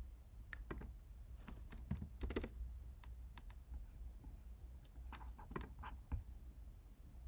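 Computer keyboard typing: scattered single key presses, with a short run of taps about two seconds in and another between five and six seconds, over a faint low hum.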